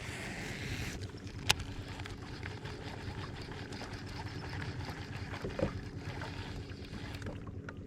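Electric trolling motor of a bass boat humming steadily, with low rumbling noise and a single sharp click about a second and a half in.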